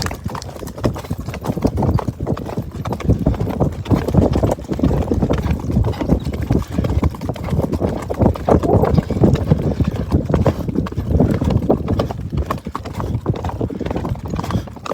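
Marwari horse's hooves beating on the ground in a continuous run of hoofbeats as the horse keeps moving.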